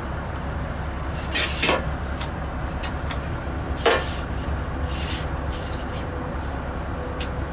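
A few sharp metallic clicks and clanks from hands working in a diesel engine bay during an oil check, over a steady low mechanical hum.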